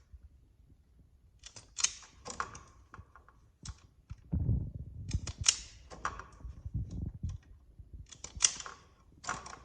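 Sharp clicks and snaps from an automatic wire stripper working on electrical cable as insulation is stripped and wire is cut. There are handling knocks and rubbing in the middle, and the clicks start about a second and a half in.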